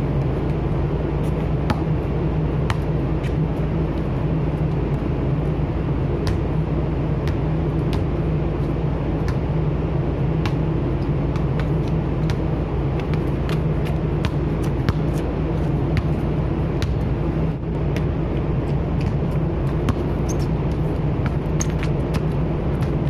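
Ship's engine and machinery running, a steady low drone with a constant hum, with scattered sharp taps and knocks on top.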